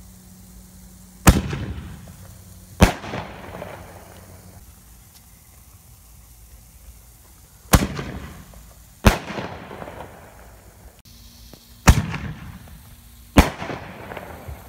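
Consumer firework canister shells going off: six sharp bangs in three pairs about a second and a half apart, each pair a shell's launch from the mortar tube followed by its burst in the air. Each bang trails off in a short echoing tail, and the first is the loudest.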